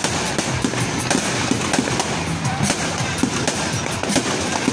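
Many fireworks and firecrackers going off at once: a continuous dense crackle of pops and bangs, with aerial shells bursting overhead.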